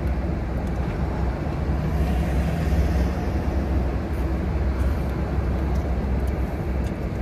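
Steady low rumble inside a parked car's cabin with the engine idling, with a few faint ticks.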